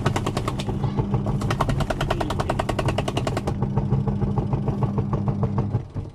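Semi-automatic washing machine's wash motor running the pulsator through a temporarily joined drive belt: a steady hum with a rapid tak-tak-tak ticking from the uneven belt joint. The motor stops near the end.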